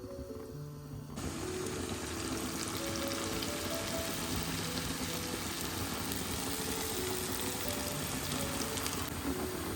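Soft background music with sustained melody notes, joined about a second in by a steady hiss, a kitchen sound of liquid or cooking that becomes the loudest thing and thins slightly near the end.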